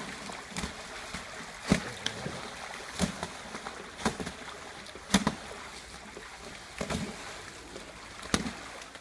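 Water splashing over a steady hiss, broken by sharp knocks or splashes about every second or so.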